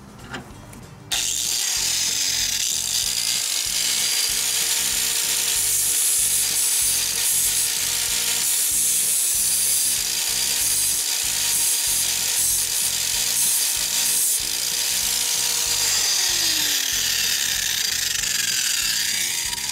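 Angle grinder with a flap disc switches on about a second in and grinds the edge of a steel mulching lawn mower blade: a steady motor whine over a loud metal-on-abrasive rasp. About four seconds before the end it is switched off and the whine falls as the disc spins down.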